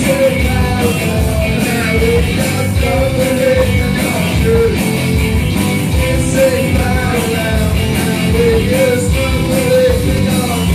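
A rock band playing live: a man sings into a microphone over electric guitars and drums.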